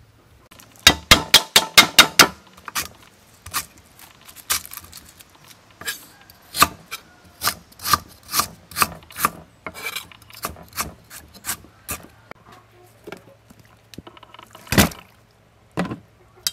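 Knife chopping lemongrass and galangal on a wooden cutting board: a quick run of chops near the start, then single cuts about every half second, with one heavier thump near the end.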